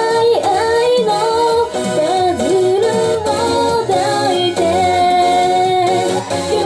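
A woman singing a pop song into a handheld microphone through a PA, over instrumental accompaniment, holding and bending long melody notes.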